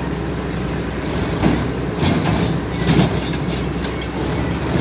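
Diesel engines of a tractor and a Tata Hitachi excavator running steadily, with a few short metallic clanks and rattles from the empty steel trailer rolling over rocky ground, the loudest about three seconds in.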